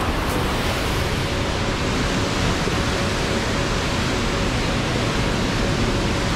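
River rapids: whitewater pouring over and between granite boulders, a loud, steady rush of water.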